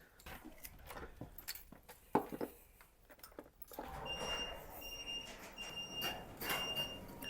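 Scattered light clicks and knocks, then from about four seconds in an electronic beeper sounding short, high, identical beeps, about five of them, a little more than one a second.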